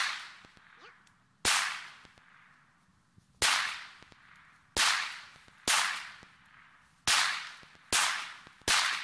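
Hi-Point C9 9mm pistol fired seven times in slow, deliberate fire, the shots about one to two seconds apart. Each shot is followed by a long echo that dies away.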